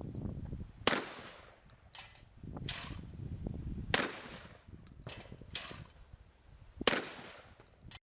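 Shotgun being fired in single, irregularly spaced shots, each sharp crack followed by a short echoing tail; three loud shots about three seconds apart, with fainter cracks in between. The sound cuts off suddenly near the end.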